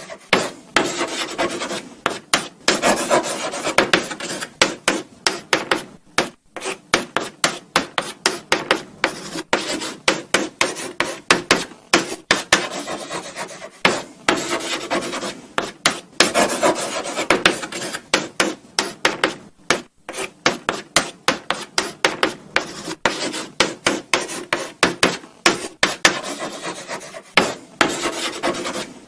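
Chalk writing on a blackboard: quick runs of short scratching strokes, several a second, broken by brief pauses between words.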